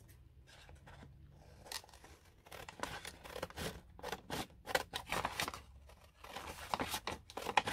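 Scissors cutting paper: a run of short, irregular snips that begins about a second and a half in.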